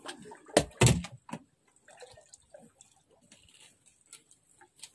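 Two sharp clicks close together just under a second in, then faint scattered ticks and small drips, from a grouper being unhooked and its fishing line handled.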